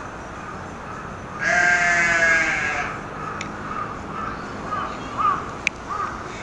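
A single long bleat, about a second and a half, with a wavering pitch.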